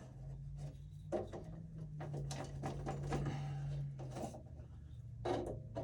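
Plastic jacket of electrical cable being wiggled and pulled at by hand after a light knife score, giving short scrapes, crinkles and clicks. A low steady hum lies under the first few seconds.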